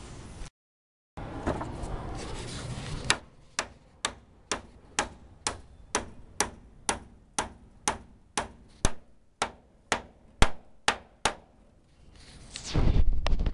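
Hammer driving nails into a wooden roof batten: a steady series of about eighteen sharp strikes, roughly two a second, starting about three seconds in after some rustling handling noise.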